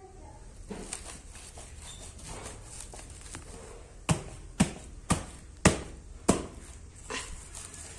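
A hand slapping a finished woven rush chair seat: five firm slaps about two a second, after faint handling and brushing sounds.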